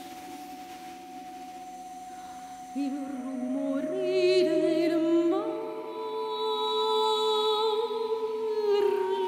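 Layered sustained vocal tones processed and held by live electronics into a drone of steady pitches. It is quieter for about the first three seconds, then new, higher tones come in and the chord steps up again about five seconds in, with some wavering upper tones above it.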